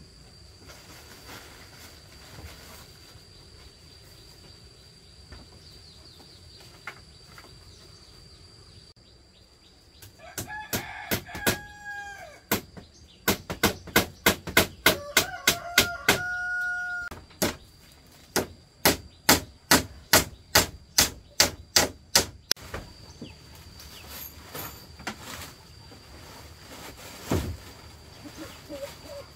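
Hammer blows, about three a second, in three runs with short pauses between them, while a rooster crows twice.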